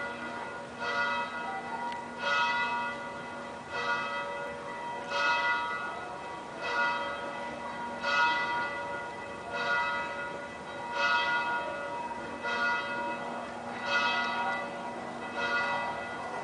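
Church bell tolling steadily, one strike about every one and a half seconds, each stroke ringing on into the next.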